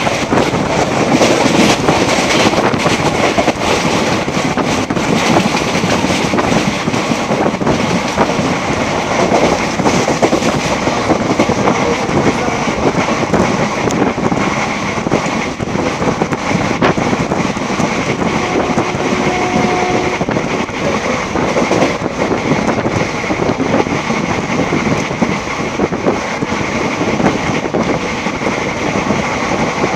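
Indian Railways passenger train running at speed, heard from an open window: a steady rumble and rattling clatter of the wheels over the rails. A short steady tone sounds briefly about two-thirds of the way through.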